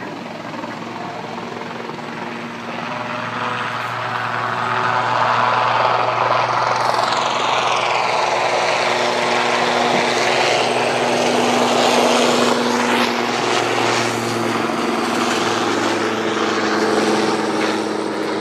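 Helicopter flying in low to land, its turbine whine and rotor noise growing louder from about three seconds in and staying loud, with a whine falling in pitch as it passes near.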